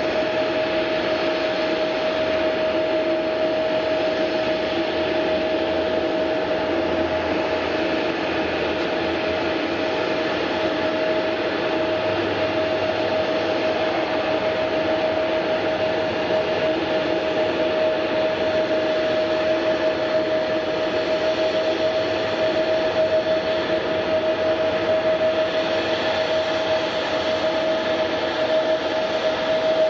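Jet airliner engines running steadily: a constant whine over a rushing noise, growing a little louder near the end.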